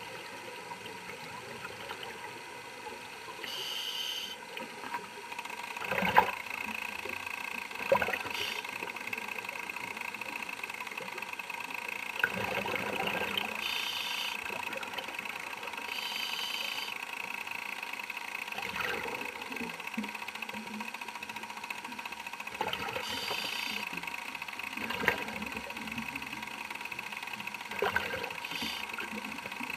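Scuba regulator breathing heard underwater: short hissing inhalations every few seconds and gurgling bubble exhalations, with a few sharp knocks, over a steady high whine.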